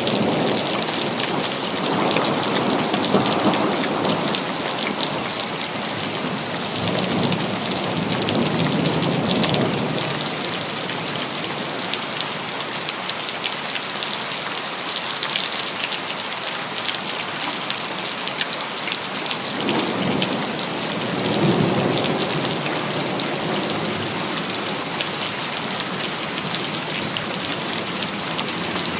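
Steady heavy rain hissing on city surfaces, with rolling rumbles of thunder swelling up at the start, again about a third of the way in, and once more about two-thirds in.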